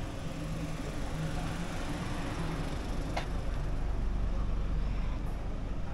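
Street traffic: a motor vehicle's low engine rumble, swelling in the second half as it passes close, with one short click about three seconds in.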